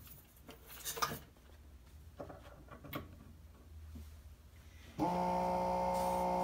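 A few light knocks and clicks of handling a plug and cord, then about five seconds in the TruBind coil binding machine's electric coil inserter motor starts suddenly and runs with a steady hum, because its switch was already on when it was plugged in.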